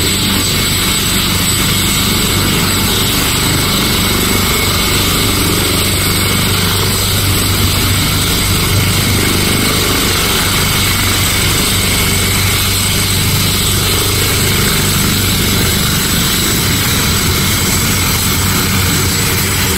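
Leonardo AW139 helicopter running on the ground with its twin turboshaft engines and main rotor turning, a steady low hum with a thin high turbine whine over it, holding an even level throughout.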